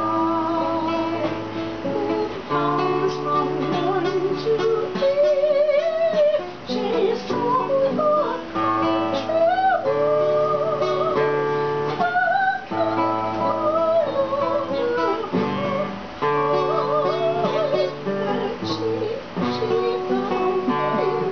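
Music: strummed guitar accompanying a sung melody with vibrato.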